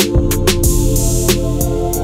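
Background music with a drum beat over held instrument tones.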